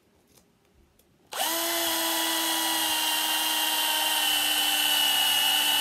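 Cordless drill starting about a second and a half in and running with a steady whine, boring out the middle of a plastic HDPE bottle cap.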